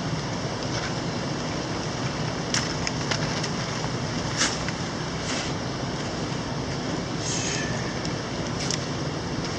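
Steady rush of a mountain stream, with a few sharp clicks and knocks over it.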